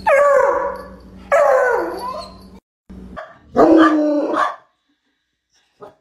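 A bloodhound giving three loud, drawn-out barks, the first two back to back and each sliding down in pitch, the third after a short pause.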